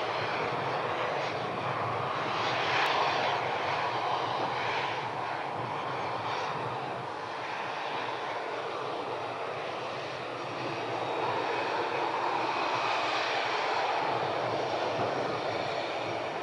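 Steady drone of an airplane engine, a noisy rush that swells and eases gently every few seconds.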